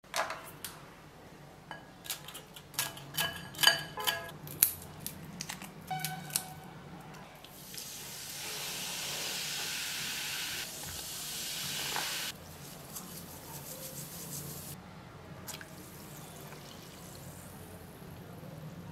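Pieces clinking into a glass bowl, with sharp ringing taps over the first several seconds. Sprite is then poured in with a steady fizzing rush that cuts off about twelve seconds in. A softer fizz and a few light taps follow as a fork moves among the cucumber ribbons.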